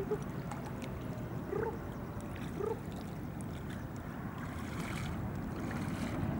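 Steady low rumble of ambience on the Rhine, with three short chirp-like calls in the first three seconds.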